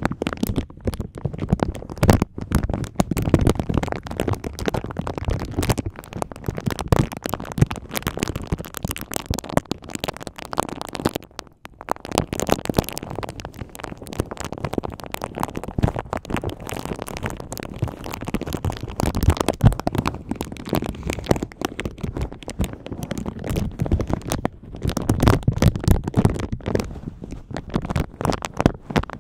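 A clear plastic bag wrapped over a microphone, crinkled and scrunched by hands right against it: a dense, continuous crackling of sharp clicks. It breaks off briefly twice, about a third of the way through and again near the end.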